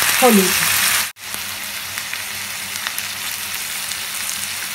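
Diced potato and brinjal frying in hot mustard oil in a kadai: a steady sizzle with scattered light crackles. About a second in, the sound cuts out abruptly and then resumes at a lower level.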